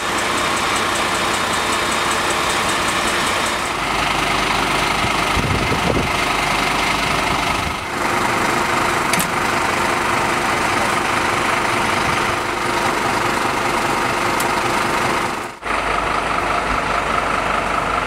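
A vehicle engine idling steadily, with a brief break about three-quarters of the way through.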